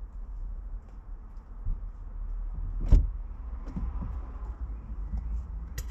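Low steady rumble with one heavy thump about three seconds in and a sharp click near the end.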